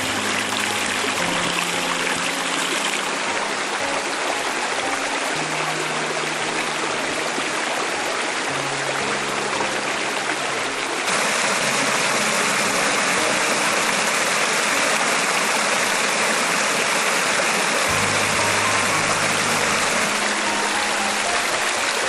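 Waterfall rushing steadily, jumping louder about halfway through. Soft background music of slow, held low notes plays underneath.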